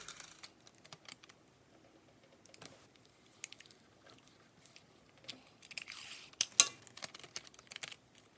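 Scattered small clicks and crackles, with a denser stretch of crackling about six seconds in and a sharp click just after: the cracked glass of an iPad 2 digitizer being worked and pried off.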